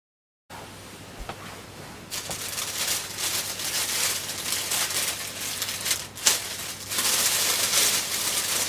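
Packaging rustling and crinkling as it is handled during an unboxing, in irregular bursts from about two seconds in, over a steady low hum.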